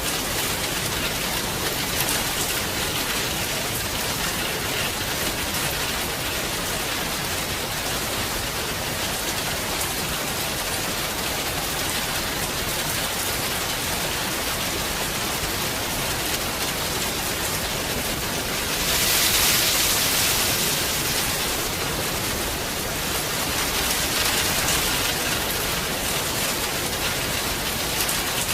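Heavy rain falling steadily, a dense even hiss, swelling louder for a couple of seconds about two-thirds of the way through.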